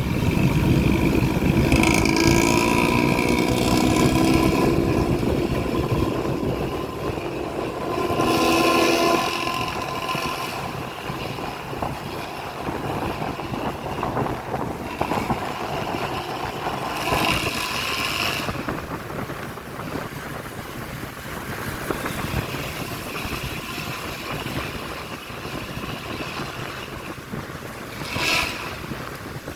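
A Hino-engined intercity bus running on the road, its diesel engine and exhaust note rising and falling under load in the first few seconds and again around eight seconds in. Road and traffic noise and wind on the microphone run throughout, and the level eases off after about ten seconds.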